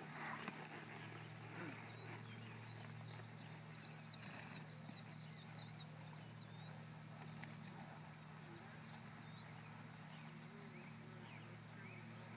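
Quiet pasture ambience with a faint steady hum; a bird gives a quick run of high, rising-and-falling chirps from about two to six seconds in, and a few soft thumps sound around the middle.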